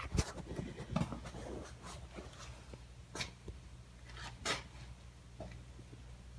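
A few scattered light knocks and clicks over a low steady hum.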